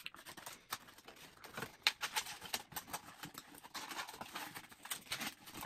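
Brown cardboard mailer box being folded together by hand: a scatter of light, irregular clicks, taps and scrapes as the flaps are bent and tucked into place.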